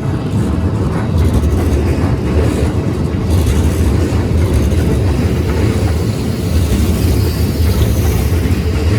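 Keikyu Line electric train passing at close range: a loud, steady rumble of wheels running on the rails.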